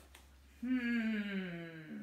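A person's voice making one drawn-out wordless vocal sound, starting about half a second in and sliding slowly down in pitch for roughly a second and a half.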